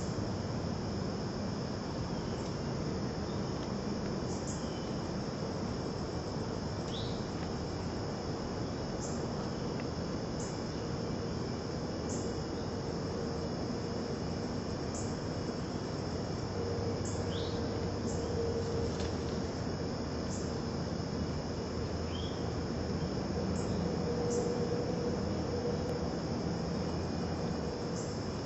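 Steady high-pitched insect trilling from the woods, with scattered short high chirps, over a constant hiss.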